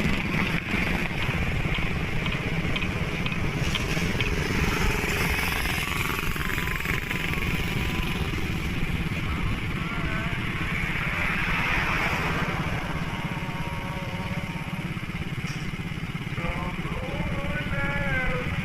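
Steady motorcycle and traffic engine noise, a continuous low rumble, with faint wavering voices or music in the background near the middle and near the end.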